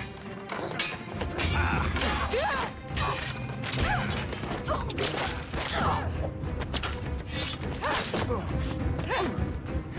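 Sword-and-spear fight sound effects: many quick blade clashes and blows, with grunts and shouts, over a low music score.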